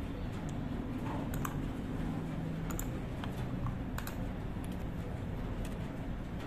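Computer keyboard and mouse clicks, a dozen or so separate, irregularly spaced clicks, over a steady low hum.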